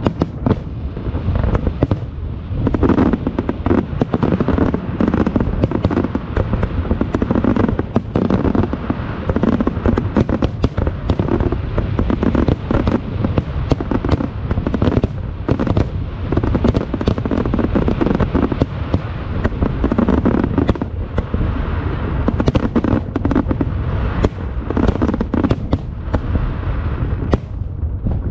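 Aerial fireworks display with continuous, densely overlapping shell bursts and crackling, over a steady low booming rumble.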